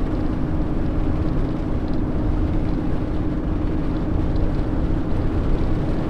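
Motorhome driving along an open road, heard from inside the cab: steady engine and road rumble with a constant low drone.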